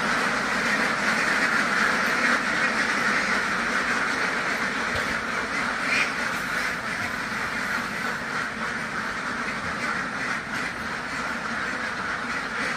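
A large flock of laying ducks quacking continuously, many voices blending into one dense, steady chatter.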